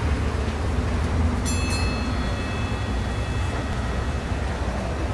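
Bus engine idling, heard from inside the cabin: a steady low rumble. A thin high whine sets in with a click about a second and a half in and fades out about three seconds later.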